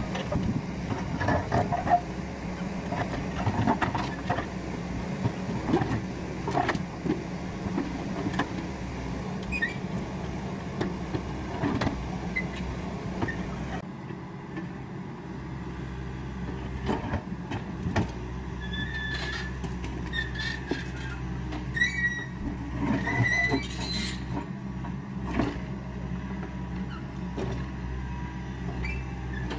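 Yanmar excavator's diesel engine running steadily under hydraulic load while its bucket and grapple handle large stones, with repeated knocks and scrapes of rock on steel. A few short high squeaks come in the second half.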